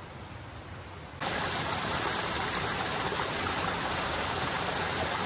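A small mountain stream running over rocks, a loud steady wash of water that starts abruptly about a second in, after a faint steady hiss, and cuts off at the end.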